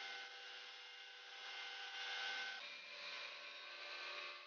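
Table saw running and cutting through a small piece of plywood, a steady whine with the noise of the blade in the wood. The whine drops a little in pitch about two and a half seconds in.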